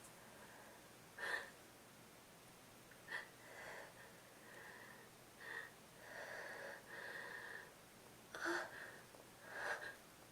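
Sniffling and breathing of someone with a congested head cold on the verge of a sneeze: about five short, sharp sniffs with longer, softer breaths in between.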